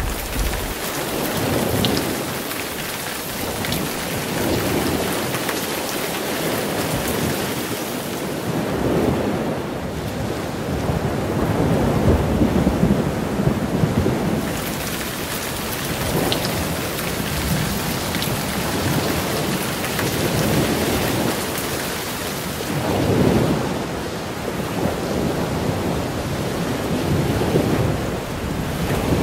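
Heavy rain pelting a car, heard from inside the cabin, with the hiss and splash of tyres through flood water on the road. It makes a steady rushing noise that swells and eases every few seconds.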